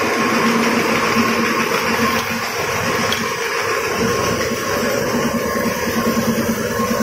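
Production-line machinery in a soap and detergent factory running steadily. It makes a continuous mechanical noise with a few steady hum tones and no clear starts or stops.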